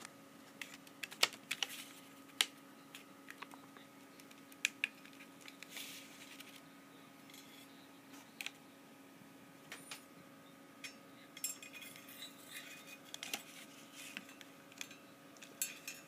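Faint handling noise: scattered light clicks and taps with a few short rustles, over a faint steady hum.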